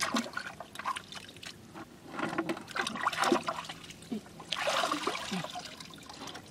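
Hands sloshing and splashing in shallow water, with water trickling and dripping and scattered light clicks; a louder splash comes a little past the middle.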